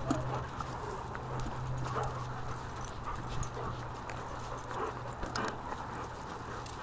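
A pack of dogs moving about on gravel: scattered paw steps and crunches with occasional short dog sounds, over a steady low hum.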